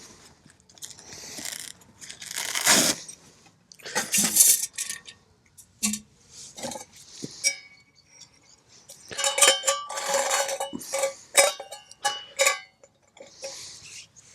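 Metal camp cookware being handled: a few rustling, scraping sounds, then a run of sharp clinks and rattles with brief metallic ringing in the second half.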